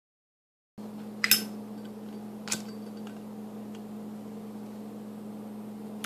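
Zippo lighter's metal lid clinking sharply, once a little over a second in and again about two and a half seconds in, with a few faint ticks after, over a steady low hum.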